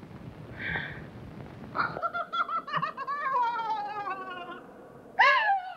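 A high, quavering laugh-like cry, pulsing rapidly and slowly falling in pitch for about two and a half seconds. A second, sharper cry rises and falls near the end.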